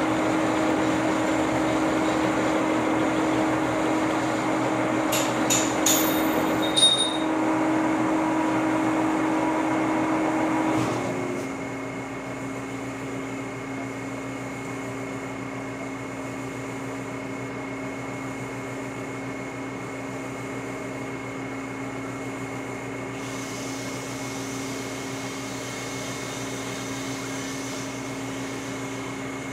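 Horizontal boring machine running on a pin-hole boring cut: a steady machine hum with a few sharp metallic ticks about six seconds in. About eleven seconds in the hum drops quieter and settles to a lower steady tone.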